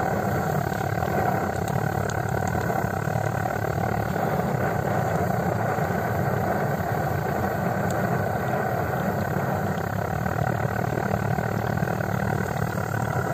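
Liquid-fuel blowtorch (blowlamp) burning steadily under a frying pan with its flame turned low, a continuous rushing noise.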